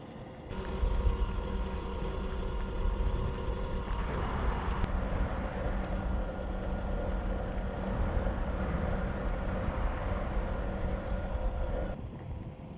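Traxxas TRX-4 RC crawler's electric motor and gear drivetrain running, a steady whine over a low rumble. It starts abruptly about half a second in, changes slightly around four seconds, and stops abruptly near the end.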